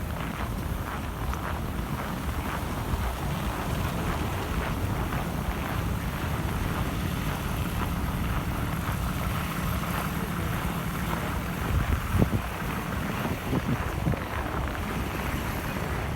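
Snowstorm wind buffeting the microphone: a steady rushing noise with a heavy low rumble, and a few brief low thumps about three-quarters of the way through.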